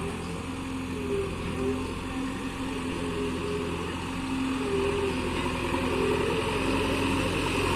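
Diesel engine of heavy machinery running steadily, growing a little louder in the second half.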